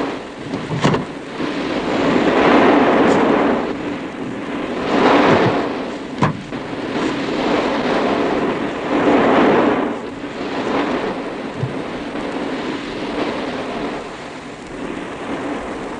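Sea surf breaking on the beach, a roar that swells and falls away every few seconds, with a few short knocks in between.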